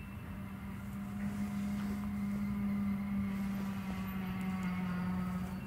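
ST44 (M62-type) diesel locomotive's two-stroke V12 engine running as the train approaches, a steady low drone that grows louder over the first few seconds.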